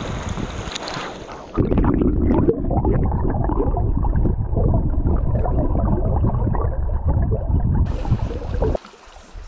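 River water splashing, then about one and a half seconds in the sound turns suddenly loud and muffled: churning, gurgling water heard from under the surface, for about seven seconds before it cuts off.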